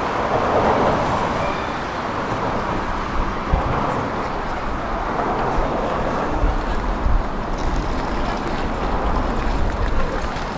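City street ambience: a steady wash of traffic and passers-by, with a deeper low rumble setting in about six seconds in.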